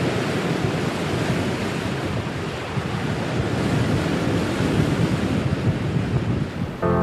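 Ocean surf and wind making a steady, loud rush of noise, rising and falling a little, with no distinct breaks or single wave crashes.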